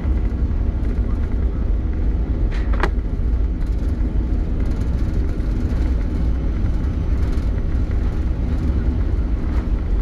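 Airliner cabin noise in flight: a steady low drone of engines and airflow heard from inside the cabin, with one short sound a little under three seconds in.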